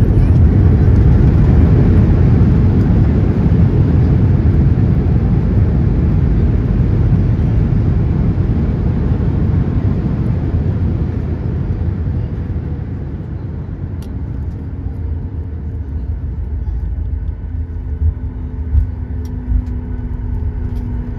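Cabin noise of a Boeing 737 rolling out after landing: a loud rumble of engines and wheels on the runway that dies away steadily as the jet slows. It settles into a quieter, even hum over the last several seconds, with a few faint clicks near the end.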